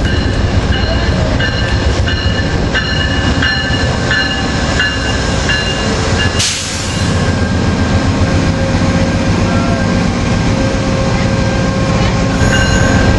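Diesel passenger train moving through a station: a steady low engine rumble with steady high-pitched squealing tones from the wheels. A short hiss comes about six and a half seconds in.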